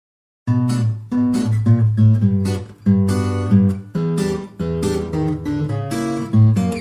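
Background music: acoustic guitar strumming chords in a quick rhythm, starting about half a second in.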